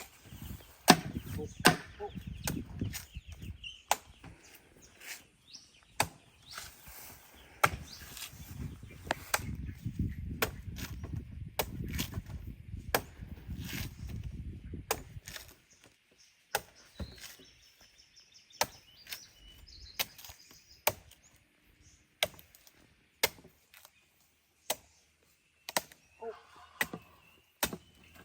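Young coconut (buko) being hacked open with a bolo knife: sharp, irregular chopping strikes, about one a second, with a low rumble under the first half.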